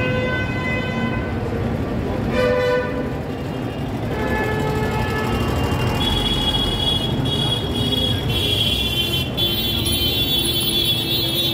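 Busy city road traffic with vehicle horns honking: a long horn at the start, a short blast about two seconds in, and more horns sounding through the second half over the steady rumble of engines.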